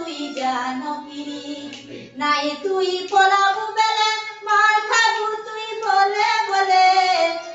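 A woman singing an Odia Danda Nrutya song, a Makar Bhet, solo and without accompaniment, in long held, gliding notes. There is a short pause about two seconds in, then the singing comes back louder.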